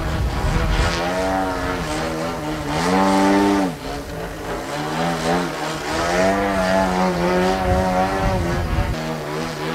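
DLE-111 twin-cylinder two-stroke gasoline engine of a large radio-controlled Sbach aerobatic plane running in flight through a KS muffler, its pitch rising and falling as the plane manoeuvres. About three seconds in the pitch climbs to a peak and then drops sharply, with a brief dip in loudness.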